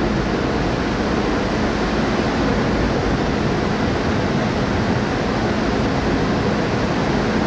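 Steady rushing noise of a ferry under way: wind and water rushing past, over a low steady hum.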